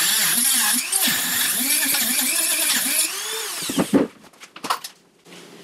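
High-speed Dremel rotary tool with a metal cut-off wheel grinding through a thin metal grate, its motor pitch dipping and rising with the load. About three seconds in it is switched off and winds down with a falling whine, followed by a few clunks as it is set down.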